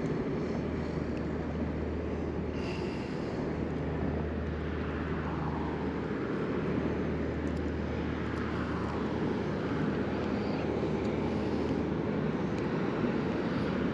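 Steady low drone of a boat engine.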